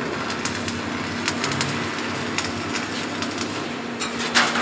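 Stick (shielded metal arc) welding arc crackling and sizzling steadily over a low hum, with sharp crackles scattered through and a louder one near the end.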